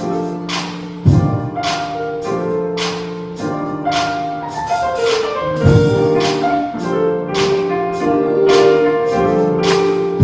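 Instrumental music with piano-like chords over a steady percussive beat, with a deep boom about a second in and another near six seconds.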